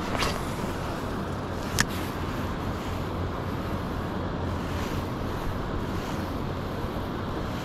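Wind buffeting the microphone, a steady rumbling rush, with a single sharp click about two seconds in.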